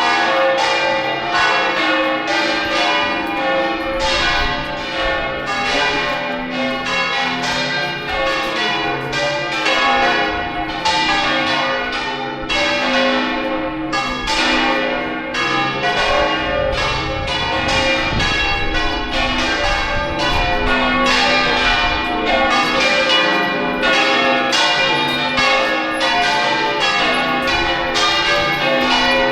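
Church bells pealing: several bells struck over and over, with strokes every half second or so overlapping in a continuous, loud ringing.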